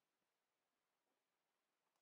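Near silence: faint room tone only.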